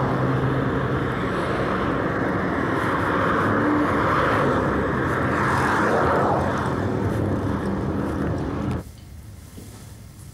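Street traffic: cars driving past with a steady rush of tyre and engine noise, one car swelling past a little after the middle. Near the end the traffic cuts off abruptly to quiet room tone.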